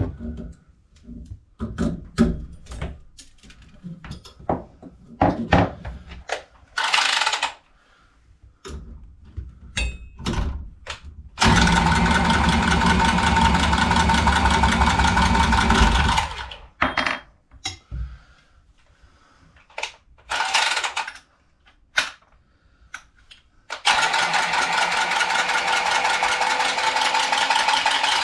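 A cordless power tool's motor runs steadily twice, about four to five seconds each time, amid clicks and knocks of tools and pipe fittings being handled.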